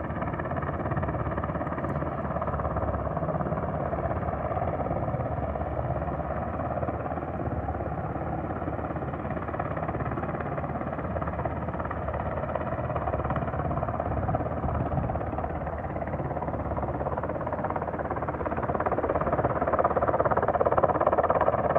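Helicopter flying overhead: a steady rotor pulse under a whine of several held tones from its engine, growing louder near the end.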